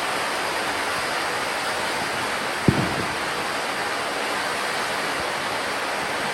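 Gold fountain firework spraying with a steady, even hiss, and a single dull thump a little under three seconds in.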